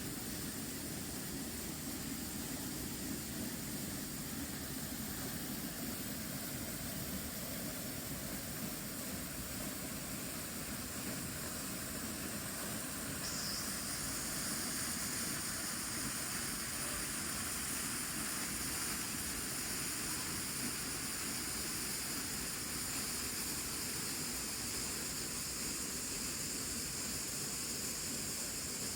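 Steady rushing noise of a jungle waterfall, which gets slightly louder and brighter about halfway through.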